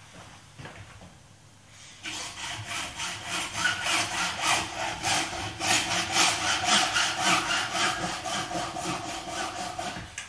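Hacksaw cutting through plastic PVC conduit held in a vise, with regular back-and-forth strokes at about three a second, starting about two seconds in.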